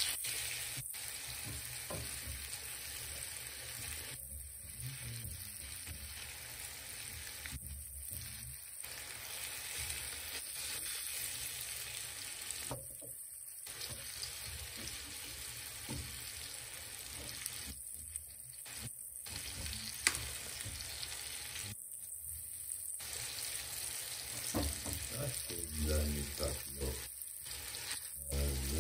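Flour-coated Black Sea gobies frying in oil in a skillet, with a steady sizzle.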